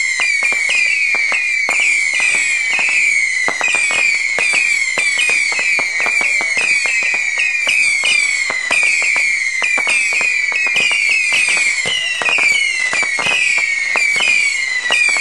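Saturn Missile firework batteries firing nonstop: a dense stream of overlapping whistles, each falling in pitch, mixed with rapid sharp pops.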